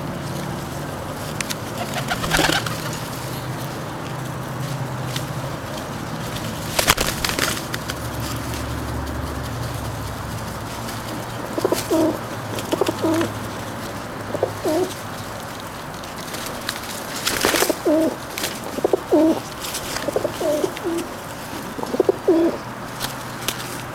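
Feral rock pigeons cooing, a string of short low coos repeating through the second half. A few sudden sharp sounds stand out now and then, and a low steady hum underlies the first half.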